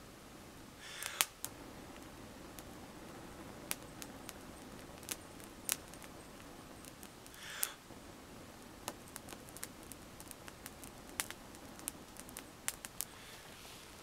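A person blowing long, steady breaths into a smouldering tinder bundle of fine twigs and dry rotten woodpecker-hole wood to bring it to flame, with two louder breaths about a second in and again after about seven seconds. Scattered sharp clicks and crackles run through it.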